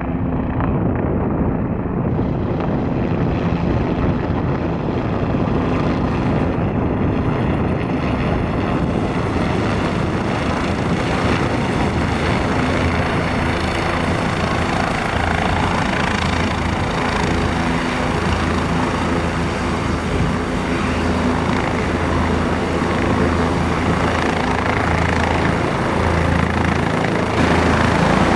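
Bell 407 helicopter running close by: the Rolls-Royce 250-C47 turboshaft and four-blade main rotor make a steady, loud sound. It grows a little louder near the end.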